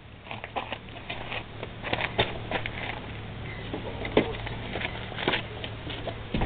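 Irregular light clicks and taps of metal hand tools being handled, several of them sharper, over a steady low hum.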